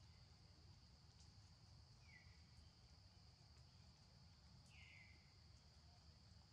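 Near-silent forest background: a faint, steady high-pitched insect drone, with two short faint chirping calls, one about two seconds in and another nearly three seconds later.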